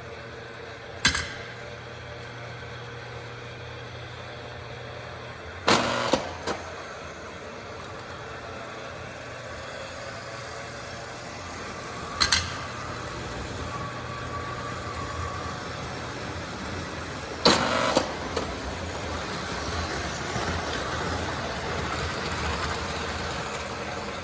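Model railroad log loader accessory running: a steady electric motor hum, with four sharp clacks a few seconds apart.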